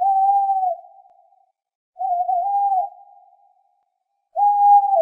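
A hooting, whistle-like tone sounded three times about two seconds apart, each held under a second and trailing off in an echo; the second one wavers in pitch.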